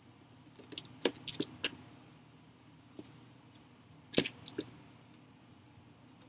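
A handful of sharp, small clicks and taps of hard plastic and metal being handled: a quick cluster of about five about a second in, a single faint tick near the middle, and three more about four seconds in, the first of them the loudest.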